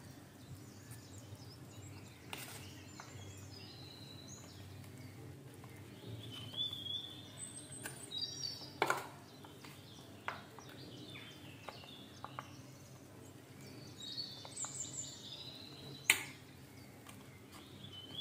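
Birds chirping faintly now and then in short high calls, over a low steady hum, with three sharp clicks spread through.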